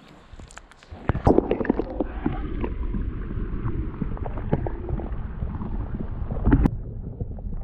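Muffled water sound heard by a submerged camera: sloshing and gurgling over a low rumble, with scattered knocks and clicks. The knocks are loudest about a second in and again near the end.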